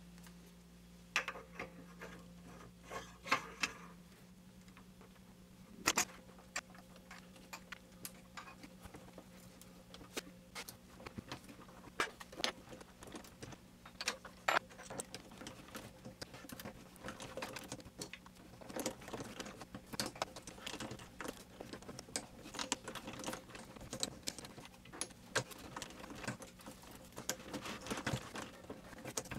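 Small metallic clicks and ticks, scattered and irregular, as a threading die in a tailstock die holder is worked by hand onto aluminium round stock, cutting threads.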